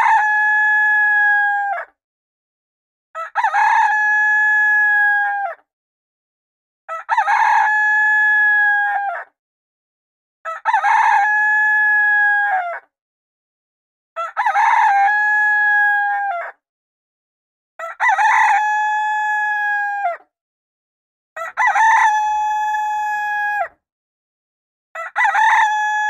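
Rooster crowing: the same cock-a-doodle-doo, each about two and a half seconds with a short lead-in and a held note that drops at the end, repeats at even intervals of about three and a half seconds with silence between. This is a looped crow sounding as a countdown timer's time-up alarm.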